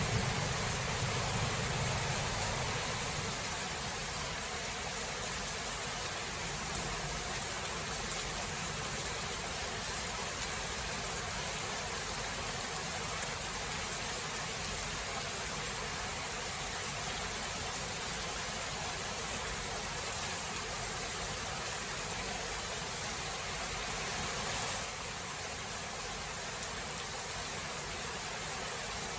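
Steady rain hiss from a thunderstorm. The tail of a low thunder rumble fades out over the first couple of seconds.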